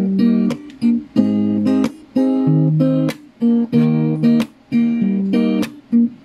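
Background music: an acoustic guitar strumming short chords in a steady rhythm, about two strums a second.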